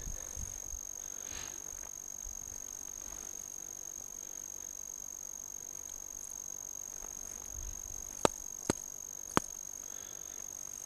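A steady faint high-pitched whine with light handling rustle, and three sharp clicks a little after eight seconds in as a small ice-fishing rod and its line are handled.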